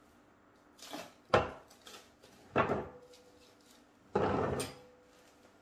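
Plastic cling film crinkling and rustling in three short bursts as a ball of dough is wrapped in it.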